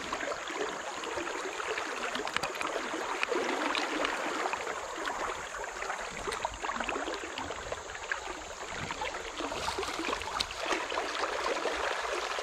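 Flowing river water running and gurgling, with many small splashes.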